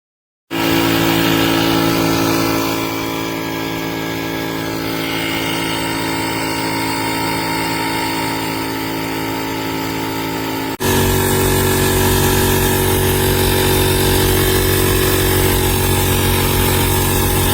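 Portable 12V piston tire inflator running steadily with a constant motor hum and pump drone. It starts abruptly, and about eleven seconds in it jumps louder and fuller, as after an edit.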